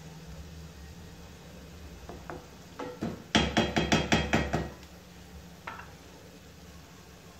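Spatula knocking against a nonstick frying pan: a few single taps, then a quick run of about ten taps lasting about a second near the middle, and one last tap, over a steady sizzle of minced meat and onion frying.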